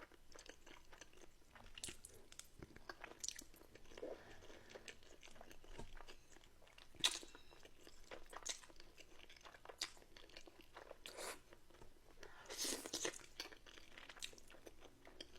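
Close-miked eating of a bowl of buldak ramen: quiet wet chewing and biting with scattered mouth clicks, a sharp click about seven seconds in and a louder run of chewing near the end.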